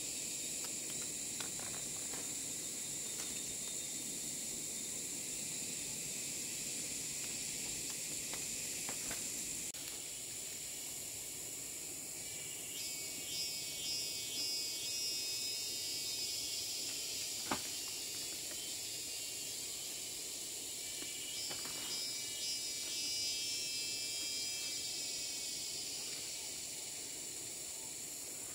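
Insects droning steadily at a high pitch, with two spells of a louder trilling insect call, one about halfway through and one about three-quarters of the way in, and a few light clicks.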